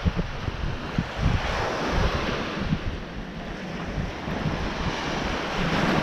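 Ocean surf washing onto a sandy beach, a steady hiss that swells and eases every couple of seconds, with wind gusting and rumbling on the microphone.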